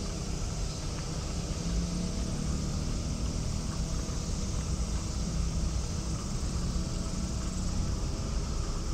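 Steady street ambience: a constant low rumble of distant traffic with a faint, even high hiss above it.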